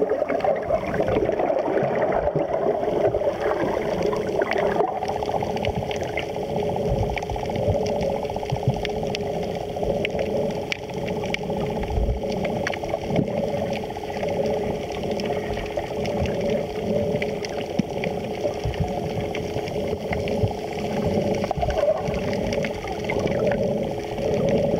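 Muffled underwater sound picked up by a camera held beneath the sea surface: a steady hum with water noise and scattered faint clicks and crackles.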